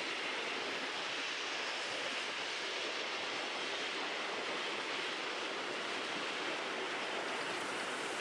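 Steady, even rushing noise with no distinct sounds or breaks in it.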